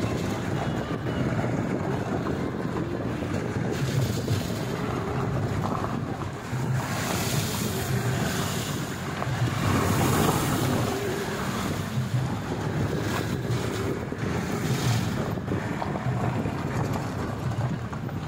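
Off-road jeep driving over a rough gravel track: a steady low engine drone with the rumble of the ride, and wind buffeting the microphone in gusts, strongest in the middle and again near the end.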